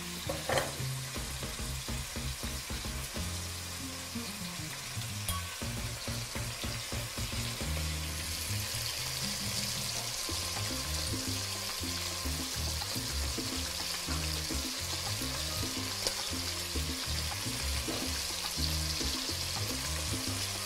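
Guanciale and crumbled sausage meat sizzling in a non-stick frying pan. The frying hiss grows a little louder after about eight seconds.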